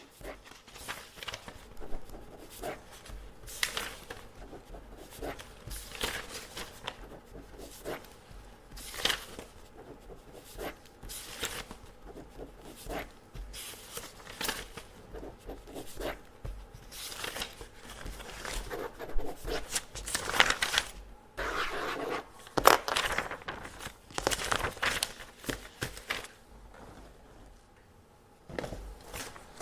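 Pen scratching quick marks onto test papers in short, irregular strokes, with the paper crinkling as it is handled. The strokes come more densely for a few seconds in the second half.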